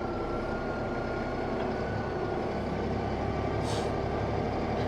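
Tractor engine running steadily, with a faint thin whine over it for the first couple of seconds and a brief hiss near the end.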